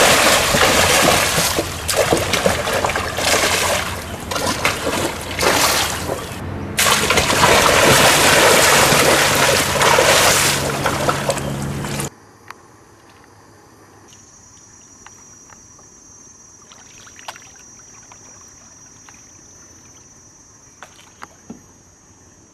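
Loud splashing, rushing water for about twelve seconds, with a low hum joining partway through. It then cuts off suddenly to a quiet stretch with a faint, steady high-pitched tone and a few light clicks.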